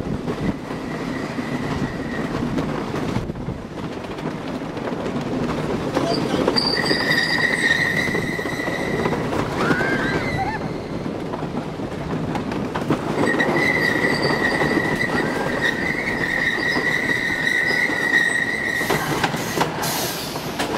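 Wooden roller coaster train running over its wooden track: a continuous rumble and rattle of the wheels, with a high, steady squeal from the wheels in two long stretches. Near the end a burst of hissing as the train runs onto the brake run.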